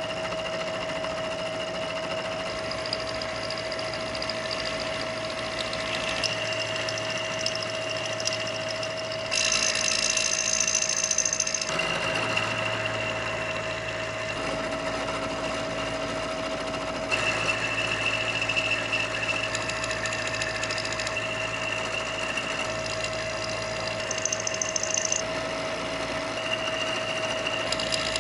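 Kearney & Trecker 2HL milling machine running with a steady whine while an end mill takes roughing cuts in a part. The cutting gets louder and harsher for a few seconds about a third of the way in, and again through most of the last third.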